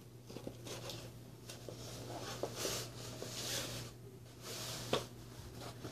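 Cardboard costume head scraping and rustling in bursts as it is pulled on over the head and adjusted, with a sharp knock a little before the end.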